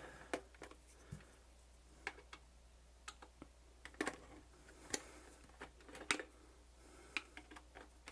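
Irregular light clicks and taps from a camcorder's plastic housing and small screws being handled during disassembly, a dozen or so sharp ticks spread unevenly, the loudest about four, five and six seconds in.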